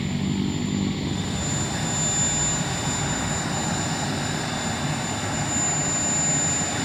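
Turbine engine of a scale RC BAE Hawk jet running as the model taxis: a steady high whine over a rushing jet noise. The whine comes in about a second in.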